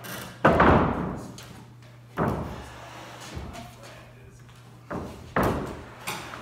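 Heavy thuds and bangs as a truck camper base is shifted across a shop floor: three loud knocks, the first the loudest, each ringing out briefly in the room, with a few lighter knocks between them. A steady low hum runs underneath.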